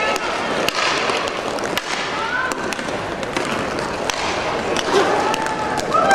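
Inline hockey in play: the hiss of skate wheels rolling on the plastic court, sharp clacks of sticks and puck scattered throughout, and players' voices calling out now and then.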